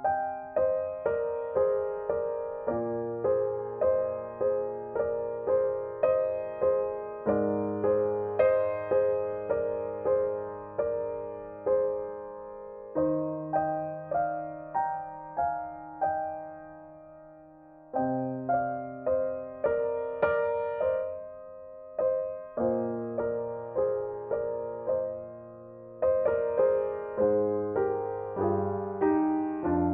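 Background piano music: a slow, gentle melody of struck notes, about two a second, over low bass notes that change every few seconds.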